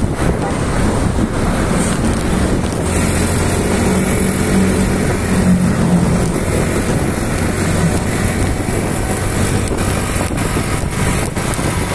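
Motorcycle under way in traffic: wind rushing over the microphone and road noise, with the engine running underneath as a steady low hum that comes through most clearly in the middle seconds.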